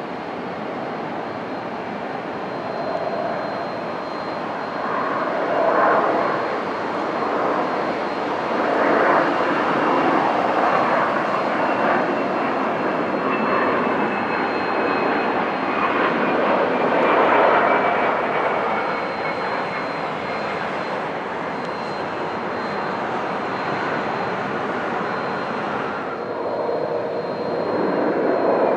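Twin rear-mounted Rolls-Royce AE 3007 turbofans of an Embraer EMB-145XR regional jet on final approach and landing: a steady rush of jet noise with a high whine that slowly falls in pitch as the jet passes, loudest around the middle. Near the end, a cut brings in the engine noise of an Embraer ERJ-175 on approach.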